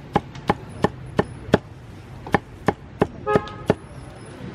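Meat cleaver chopping roast pork on a chopping block: about ten sharp, evenly spaced strikes, roughly three a second, with a short pause in the middle. One strike about three seconds in rings briefly.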